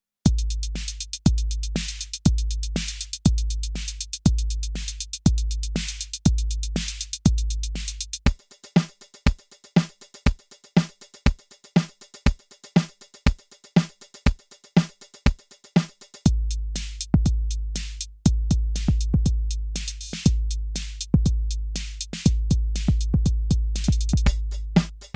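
Electronic drum machine beat. A long, deep booming bass drum hits about once a second under snappy drum hits and hi-hats. About eight seconds in the deep kick drops out, leaving sharper hits over a fast hi-hat pattern; about eight seconds later the booming kick returns in a busier pattern.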